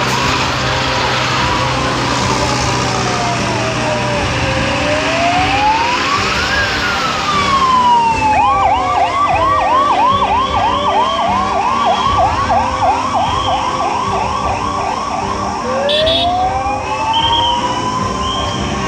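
Ambulance siren wailing in slow rising and falling sweeps, changing about halfway through to a fast yelp of roughly three cycles a second, then rising slowly again near the end. Vehicle engines run underneath.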